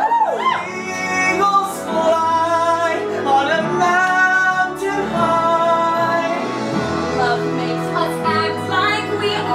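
A man and a woman singing a pop-medley musical-theatre duet over instrumental accompaniment, with long held notes and a swooping vocal run near the start.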